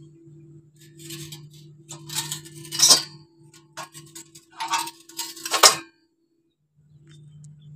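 A few short metallic clinks and scrapes over a steady low hum; the hum drops out for about a second near the end.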